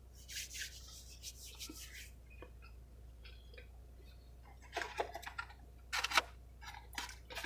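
Quiet clicks and rustles of a person eating fries: mouth and chewing sounds and handling of the food. A few louder short rustles come around five and six seconds in.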